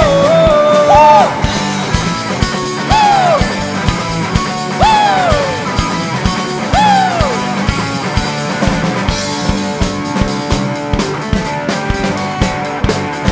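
Live rock band playing, with electric bass and drums, and a short rising-and-falling phrase repeated three times about two seconds apart.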